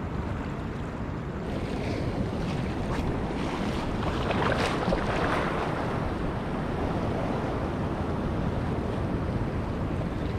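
Sea surf washing in steadily, with wind buffeting the microphone; a wave surges louder about four to five seconds in. The water is rough and choppy.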